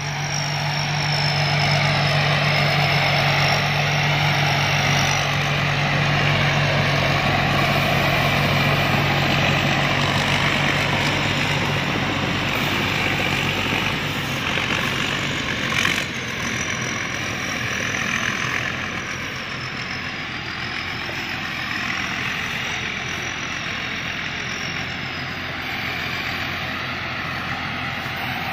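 Combine harvester running steadily, engine and threshing machinery together, with a high thin whine over it for the first few seconds and again in the second half, and a single brief knock about halfway through.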